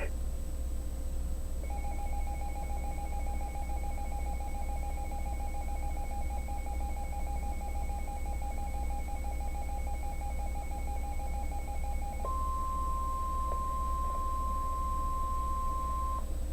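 NOAA Weather Radio alert signals. From about two seconds in comes some ten seconds of buzzing electronic data tones, and then a steady single-pitched alarm tone lasts about four seconds: the 1050 Hz warning alarm tone that announces a new warning. A low steady hum runs underneath.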